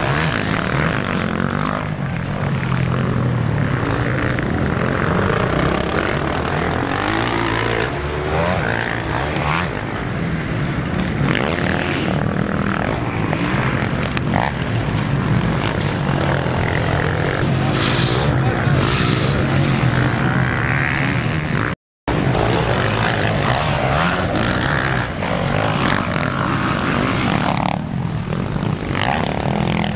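Motocross bikes of the 250–450 cc class racing on a dirt track, their engines revving up and down as riders accelerate, climb and shift. The sound drops out completely for a moment about two-thirds of the way through.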